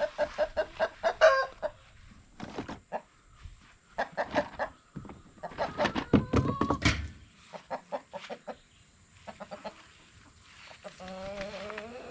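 Chickens clucking and squawking in repeated short calls while being caught by hand, with a loud burst of scuffling about six to seven seconds in and a longer drawn-out call near the end.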